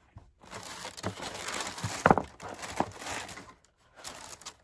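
Wrapping paper rustling and crinkling as a slipper is pulled out of a shoebox, with a few short knocks about two seconds in.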